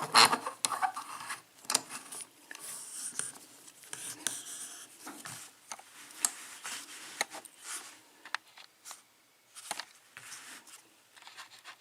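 Scattered light clicks, taps and scraping rubs as a euro cylinder lock and small tools are handled up close.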